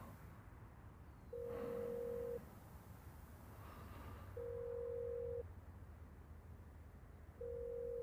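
Telephone ringback tone: a steady single-pitched beep about a second long, repeating every three seconds, three times, while a call waits to be answered.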